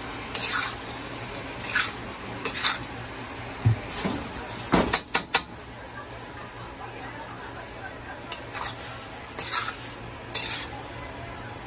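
Utensil scraping and clinking against a cooking pot as pepper shrimp is stirred, in short irregular strokes over a steady low sizzle of frying.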